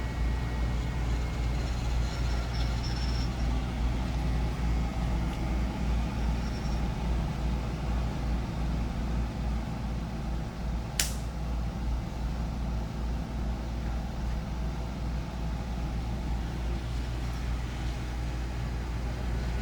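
Home-built hot-wire foam-cutting CNC machine running a cut: a steady low hum from its stepper motors and motor cooling fans. A single sharp click about eleven seconds in.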